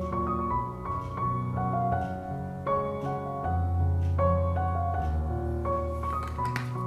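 Background piano music: a gentle melody of single held notes over a sustained low bass.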